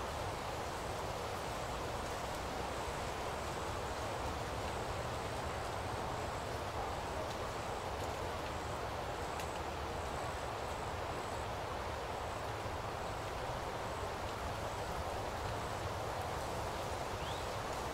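Steady background ambience: an even hiss with a low rumble underneath, unchanging and with no distinct events.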